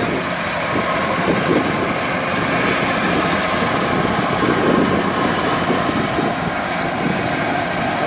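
Kubota DC-105X combine harvester running steadily as it works through standing rice: its engine and threshing machinery make an even, continuous mechanical noise.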